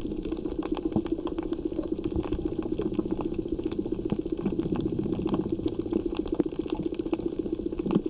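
Underwater sound over a coral reef: a steady low hum under a constant, dense crackle of short clicks.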